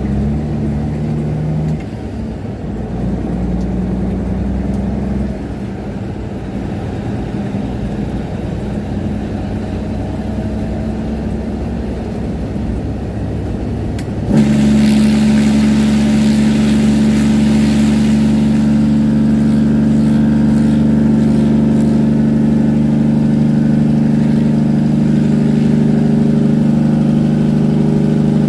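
Semi-truck diesel engine running on a downhill grade through a straight-pipe exhaust with no muffler. About fourteen seconds in, the engine brake cuts in abruptly and turns the sound into a much louder, steady, deep exhaust growl that holds.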